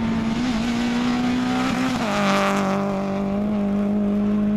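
Renault Clio II rally car's engine running hard at high revs through a corner; its pitch shifts down about two seconds in, then holds steady. A burst of hiss from the tyres throwing up loose gravel and dust comes at the same moment.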